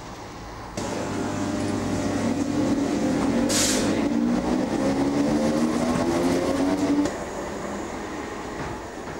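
A train pulling away, its motor or engine note rising slowly in pitch as it gathers speed, with a brief hiss about three and a half seconds in. The sound starts suddenly about a second in and drops away abruptly near seven seconds.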